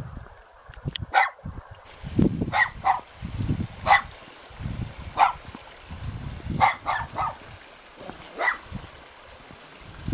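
A white fluffy dog barking a series of single, separate barks, about nine spread irregularly a second or so apart. This is a guard dog's warning barking.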